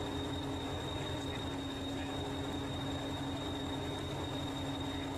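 Stationary Class 201 'Hastings' diesel-electric multiple unit 1001 idling, its English Electric diesel engine giving a steady pulsing rumble and hum, with a thin high whine above it.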